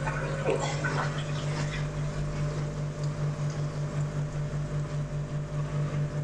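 PondXpert Variflow 20000 pond pump running at full speed: a steady hum with a fast, even pulsing, over water rushing through the pipework.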